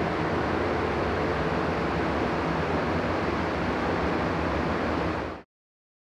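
Steady rushing air noise with a low hum underneath, from a paint booth's ventilation, cutting off suddenly about five and a half seconds in.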